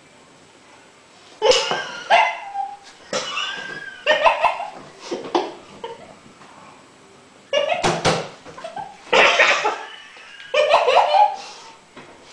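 Two people coughing and spluttering in repeated harsh bursts, starting about a second and a half in, after taking a dry spoonful of ground cinnamon: the powder catching in the throat. Some of the bursts run into laughing.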